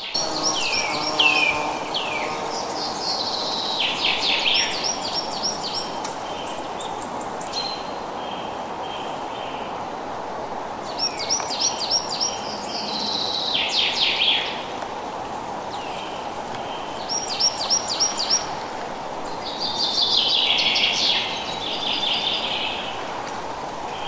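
Songbirds singing several bursts of quick, falling high notes a few seconds apart, over a steady hiss of wind in the trees.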